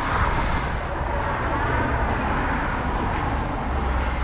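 Steady highway traffic noise: a continuous low rumble of vehicles passing at speed.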